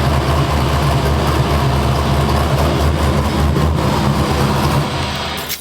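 LS V8 engine in a truck idling steadily soon after a cold start, running on a Holley Terminator X fuel injection with a raised after-start setting; it is shut off near the end and dies away.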